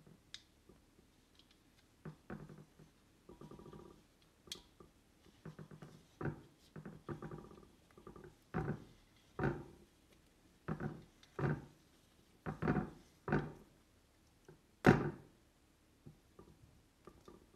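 Teflon thread-seal tape pulled off its roll and wrapped around the threaded metal nipple of a reverse osmosis storage tank: a series of soft rubs and faint squeaks about once a second, with a louder one near the end.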